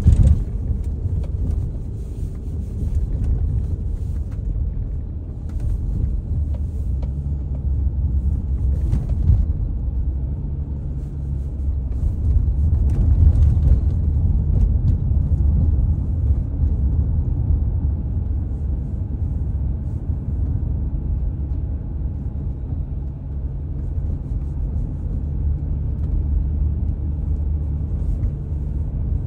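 Steady low rumble of a car driving on wet streets, heard from inside the cabin, swelling a little about halfway through. Scattered light ticks come through in the first ten seconds or so.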